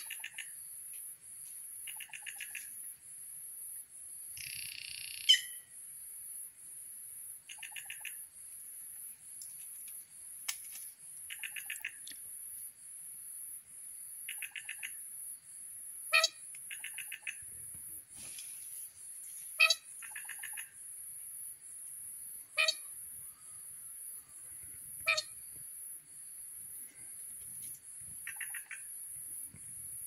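Forest birds calling: short rattling trills every few seconds and several loud, sharp falling calls. Under them runs a steady high-pitched insect buzz that pulses about once a second.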